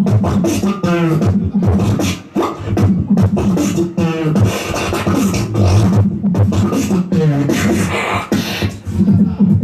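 Live beatboxing into a handheld microphone: a fast, rhythmic run of vocal drum sounds, kicks, snares and hi-hats, broken a few times by sliding pitched vocal sweeps.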